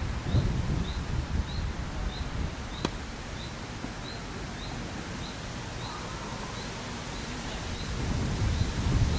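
Wind gusting on the microphone, loudest near the start and again near the end, while a bird gives a short high chirp about twice a second throughout. One sharp tap sounds about three seconds in.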